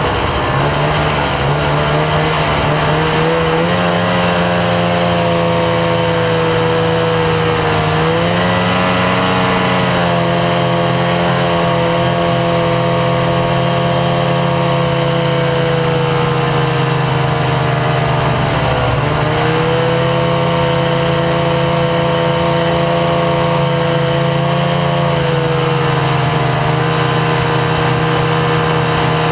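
Snowmobile engine running steadily at cruising speed, heard from on board along with track and wind noise. The engine note dips and climbs back twice, about 8 and 19 seconds in, as the throttle eases off and opens again.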